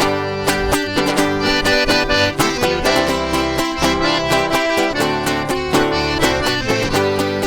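Instrumental introduction of a sertanejo song, played by a full band with a steady beat, before the singing comes in.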